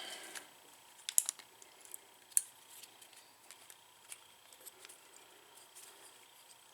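Light metallic clicks and taps of a motorcycle front brake caliper and its pads being handled and worked open, with sharp clicks about a second in and again about two and a half seconds in, then fainter ticks.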